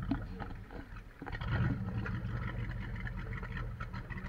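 Motorboat engine running with a low, steady hum, with water splashing and crackling above it.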